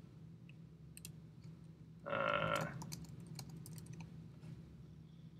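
Typing on a computer keyboard: light, scattered key clicks. A brief pitched sound is heard a little after two seconds in.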